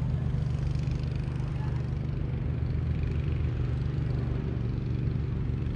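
Lawn mower engine running steadily at a constant speed.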